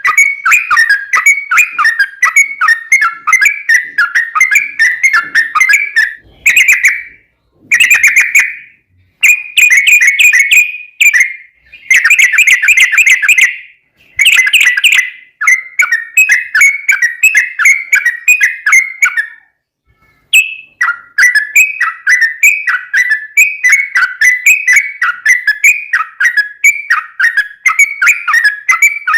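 Yellow-vented bulbul (trucukan) singing long runs of rapid, bubbling, chattering notes, broken by a few short pauses.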